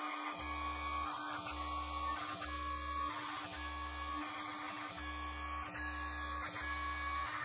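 Stepper motors of a Sainsmart Genmitsu PROVerXL 4030 hobby CNC router whirring through short, evenly repeated moves with brief pauses, about one a second, over a steady hum.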